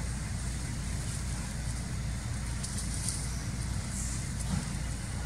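Steady low outdoor rumble, with a few faint high chirps about three and four seconds in.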